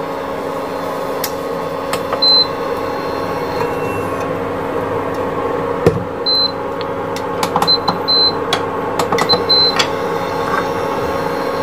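Steady electric hum of a kitchen appliance, with a short high beep about two seconds in and a run of several more beeps in the second half, among scattered clicks and light knocks.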